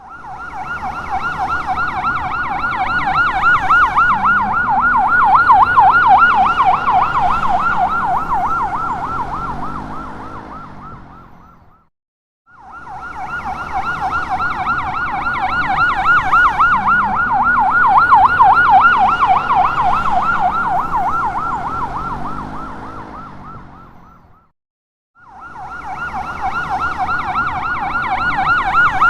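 Ambulance siren in a rapid warble, passing by three times: it swells to its loudest and fades away over about twelve seconds, stops, and starts over. The third pass begins near the end.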